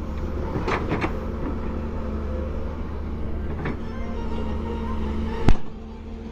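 Excavator engine running steadily, with a few light knocks and one sharp, loud bang about five and a half seconds in.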